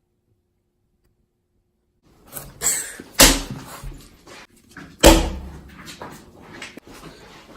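Two seconds of silence, then several knocks, with two loud thumps about two seconds apart.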